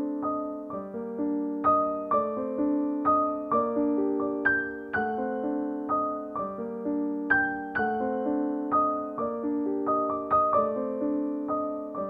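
Background music of soft keyboard notes, each struck and left to ring out, several notes sounding together in a slow flowing pattern.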